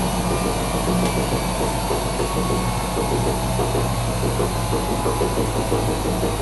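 Front-loading washing machine running near the end of a coloured cottons 40° wash: a steady motor hum with a fast, even whirr.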